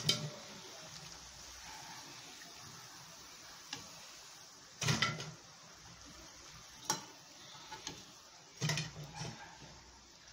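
Pakodas deep-frying in hot oil in an iron kadai with a faint steady sizzle. A metal spoon clinks and scrapes against the pan several times as the fried pieces are lifted out, loudest about five seconds in and again near the end.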